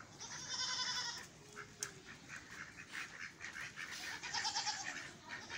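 Goat bleating twice: a wavering call of about a second at the start and another about four seconds in.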